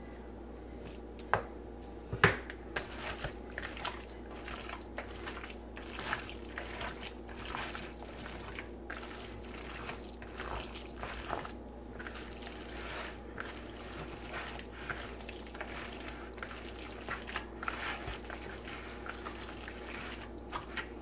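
Hands squishing and kneading moist cornbread dressing in a bowl: an uneven run of soft wet squelches, with two sharp knocks about a second and two seconds in. A steady low hum runs underneath.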